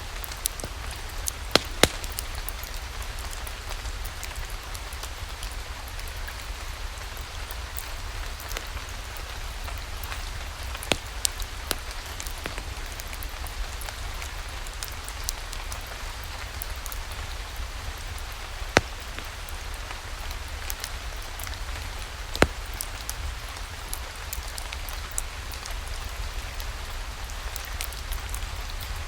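Steady rain falling together with a crackling wood fire in a fireplace, a few sharp pops standing out every several seconds.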